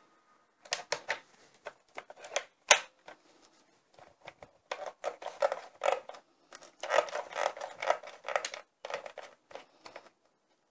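Irregular clicks, taps and scraping rattles of a hard plastic toy fire engine being handled, as its hose nozzle is pulled out of its side socket. The rattling is densest in the second half.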